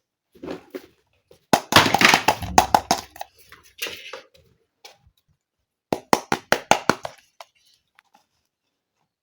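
Small plastic toy kitchen pieces being handled: a rustle mixed with clattering clicks, then a quick run of about eight sharp clicks.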